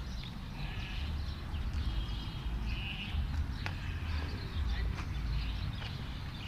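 Outdoor ambience: a steady low rumble, with small birds chirping now and then and a couple of sharp clicks.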